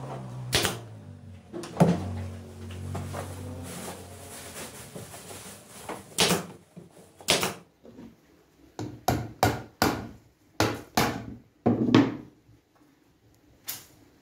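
Pneumatic nailer firing into a hardwood frame: a series of sharp shots, a few spaced out early, then a quick run of about three a second in the second half.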